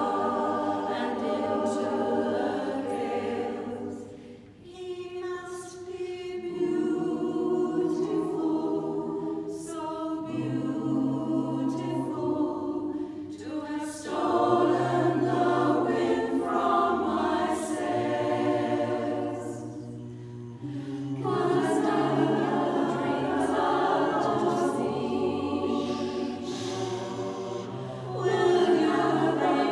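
Mixed-voice choir singing a cappella in close harmony: held chords sung in phrases, with short dips between phrases and a louder swell near the end.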